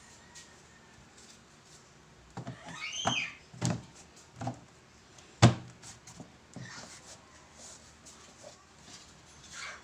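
The carpet-covered front grille panel of a Crown speaker cabinet being fitted into place by hand: a short scraping squeak, then a few knocks against the cabinet, one much louder hit about halfway through.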